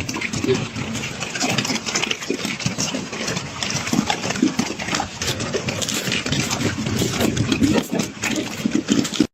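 A pig grunting and snuffling in a continuous, irregular low rumble.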